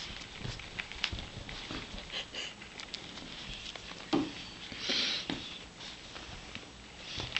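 A puppy playing on a fabric blanket with a toy ball: scuffling and scratching of paws on the cloth, with many small clicks and knocks scattered throughout and a louder rustling rush about five seconds in.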